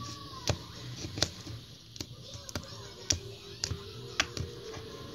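Clear slime being poked and pressed with fingers in a plastic cup, giving sharp, irregular clicks and pops, about seven in five seconds.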